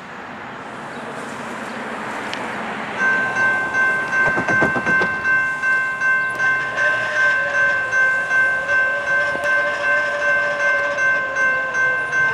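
A rising rumble, then after about three seconds a railroad grade crossing's warning bell starts ringing, a rapid repeated ding of about two to three strokes a second, as the crossing gates come down. The bell cuts off suddenly near the end.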